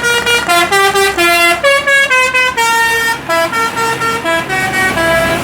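Bus 'telolet' basuri horn playing a quick melody of short notes that step up and down in pitch, with a brief break about three seconds in.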